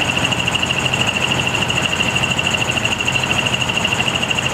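Steady running of idling truck engines, a constant low hum, under a loud, steady high-pitched whine or chirring that holds one pitch throughout.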